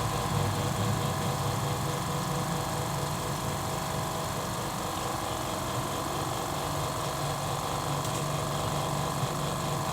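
Mollar 50-litre eight-piston silent air compressor running steadily: a continuous motor hum with a fine rapid pulsing.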